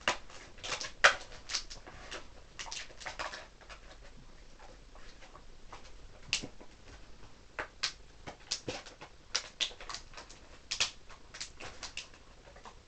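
Handling noise from a Beyblade's plastic bag and parts: irregular sharp crinkles and clicks as the bag is opened and the top is taken apart, the loudest about a second in.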